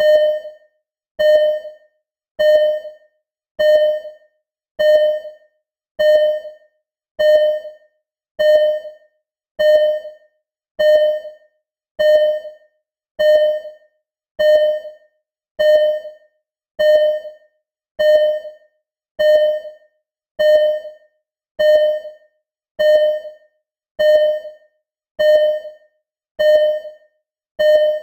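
Simulated hospital ECG heart-monitor beep: a single pitched electronic beep with a quick fade, repeating steadily about once every 1.2 seconds with silence between beeps.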